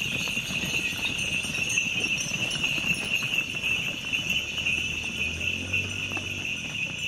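Herd of Gir cattle trotting and running across dry dirt, their hooves thudding irregularly and the bells on their collars jingling, over a steady high buzz.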